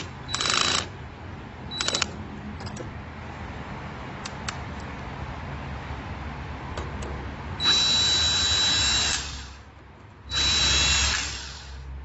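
Cordless drill/driver undoing screws on an electrical terminal block. There is a short burst of motor whine at the start and a brief blip around two seconds in, then two longer runs of about a second and a half each in the second half, with a few faint clicks between.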